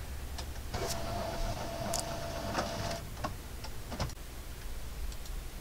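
A small electric motor whines steadily for about two seconds and then stops, with scattered light clicks and knocks over a low background hum.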